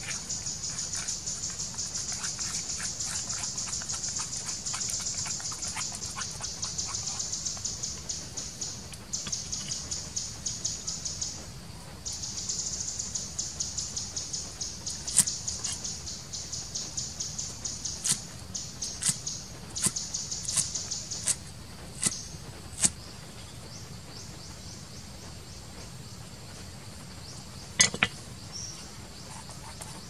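Hand food preparation with a fast, steady run of light scraping and tapping strokes, about four a second, from a stick stirring a paste in a bowl and a cleaver chopping on a wooden board. Louder, sharp cleaver knocks on the board come from about fifteen to twenty-three seconds in, with one more near the end.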